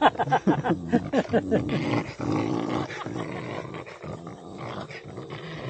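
A dog growling in play while tugging on a toy in a game of tug-of-war.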